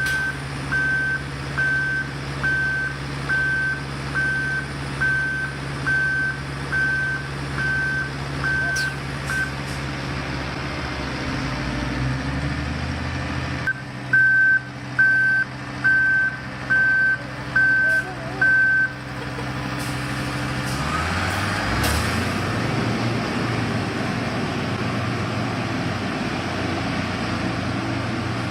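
Reversing alarm on a heavy construction vehicle beeping about one and a half times a second over a steadily running engine. The beeping pauses for a few seconds, comes back louder, then stops about two-thirds of the way in, leaving only the machinery running.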